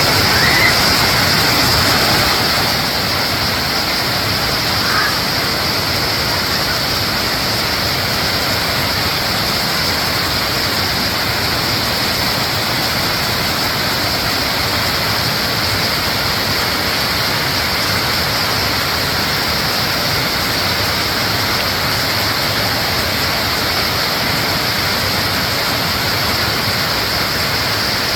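Waterfall rushing steadily: a loud, even wash of falling water with no breaks.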